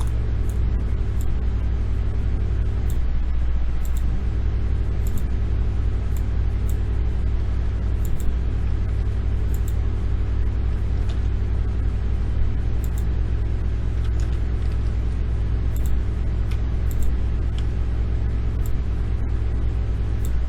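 Steady low background rumble, with faint sharp clicks every second or so.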